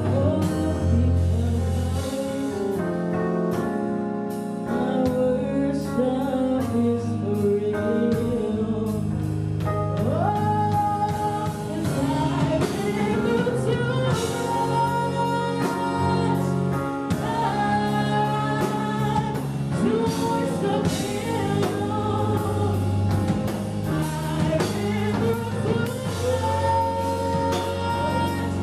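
Gospel music: voices singing over a band with a steady drum beat.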